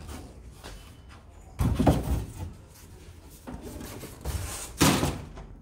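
Two short scraping, rubbing handling noises, the first about a second and a half in and the second near the end, with fainter shuffling between them.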